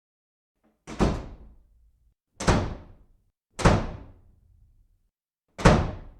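Four heavy bangs, a second or two apart, each dying away within about half a second.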